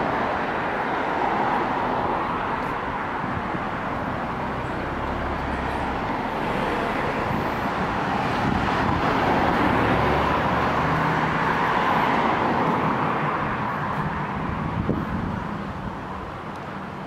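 Road traffic: cars passing on the street, a steady rush of tyres and engines that swells as vehicles go by, loudest about halfway through and easing near the end.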